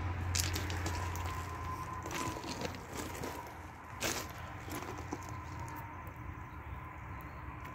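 Footsteps crunching on track ballast, with scattered clicks and scrapes from the phone being handled. A low steady hum fades out about a second and a half in.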